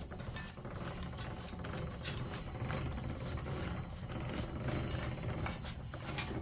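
Ratcheting mechanism on an overhead trolley hoist clicking and rattling while a heavy furnace shell hangs from it, over a steady low hum.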